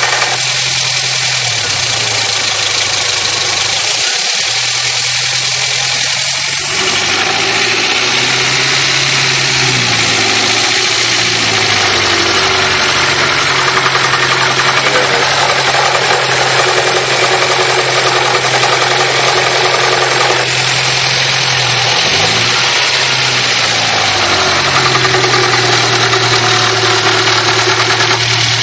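Honda Prelude engine running, its pitch sliding up and down several times as the revs change, over a steady loud rush of noise.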